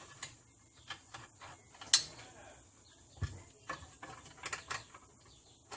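Scattered light clicks and knocks of small metal mounting hardware being handled as a washer and bolt are fitted to an air tank's mounting plate, the sharpest knock about two seconds in.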